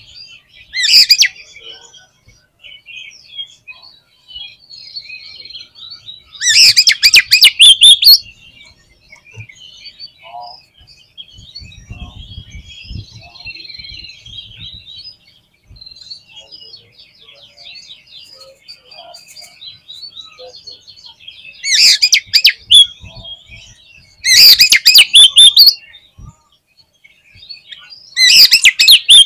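Oriental magpie-robin song: soft, continuous high twittering broken by about five loud, rapid bursts of song, the aggressive calling played as a lure to rouse a kept male.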